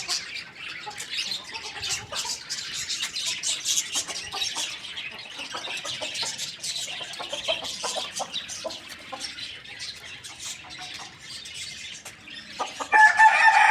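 Chickens clucking while a flurry of short clicks and high chirps goes on, then near the end a rooster begins a loud crow.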